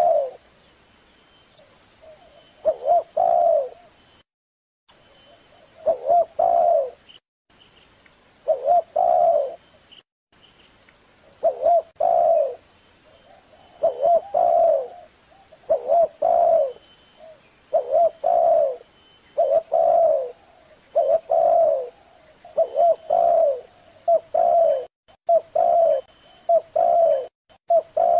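Spotted dove cooing: a repeated short phrase of a few low coo notes. The phrases come every two to three seconds at first and about every second and a half in the second half.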